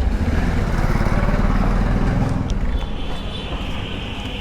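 KTM Duke 250's single-cylinder engine running at low speed, easing off after a couple of seconds. A steady high-pitched tone joins about three seconds in.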